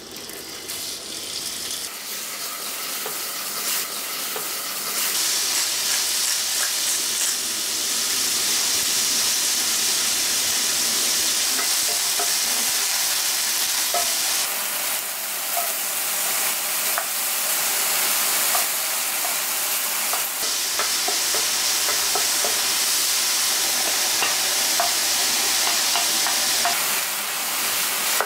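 Diced chicken thigh sizzling in hot oil in a nonstick frying pan, stirred with a wooden spatula that adds small scrapes and taps. The sizzle builds over the first few seconds, then stays steady.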